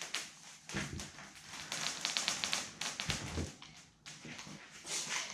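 Light knocks and taps from working a window screen with a spline roller tool, with a quick run of clicks about two seconds in.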